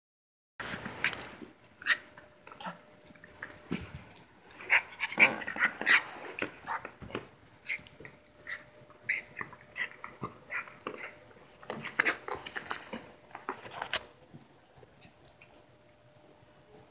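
Four-week-old puppies playing with small adult dogs: a busy run of short yips, whimpers and barks, which thins out about 14 seconds in.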